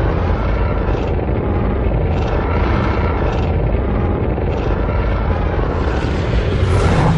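MonsterVerse Godzilla sound effect: a long, loud, deep rumble that swells several times and grows brighter near the end.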